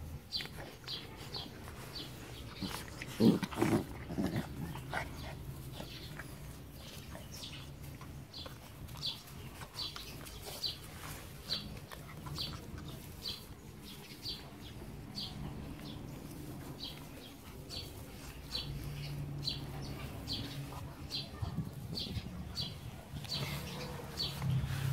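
Puppies playing and mouthing on grass, with a louder burst of puppy noise about three seconds in. Under it a high chirp repeats steadily, about twice a second.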